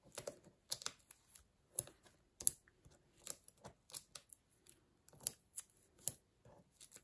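Irregular small clicks and taps as fingers peel foam adhesive pads off their backing sheet and press them onto cut pieces of patterned paper.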